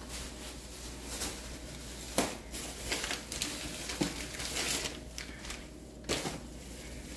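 Plastic shopping bag crinkling and rustling as items are handled in it, with a few sharper clicks and knocks.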